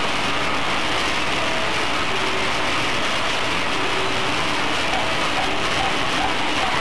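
Flour-coated peanuts rolling and rattling in the swinging trays of a peanut swing oven roaster, a steady, dense patter.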